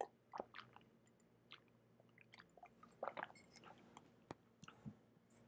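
Faint, scattered mouth sounds and small clicks of a person drinking from a glass, sipping and swallowing, over near silence.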